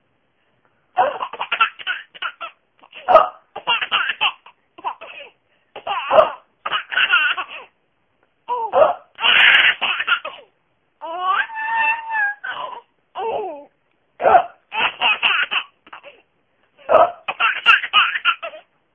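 Seven-month-old baby laughing in repeated bursts, set off again and again by hiccups, with short sharp hiccup sounds between the bursts of laughter.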